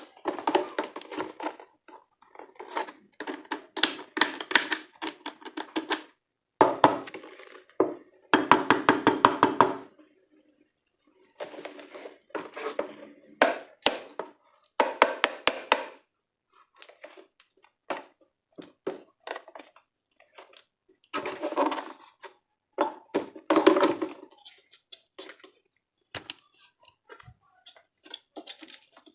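Handling of a boxed electric fan's parts and packaging: plastic pieces knocking and scraping, and packing rustling, in irregular bursts with short pauses.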